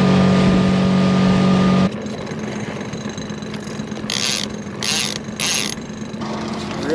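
Boat motor running loud and steady, cut off abruptly about two seconds in; a quieter steady motor hum follows, with three short hissing bursts about a second apart near the end.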